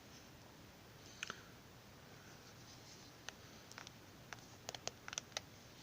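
Faint clicks of keys on a T16 wireless mini keyboard being pressed: a pair about a second in, then scattered single clicks and a quick run of several near the end.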